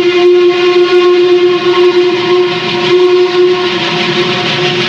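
Norfolk & Western articulated steam locomotive's whistle blowing one long steady note, which weakens and breaks up near the end, over the steady noise of the moving coal train.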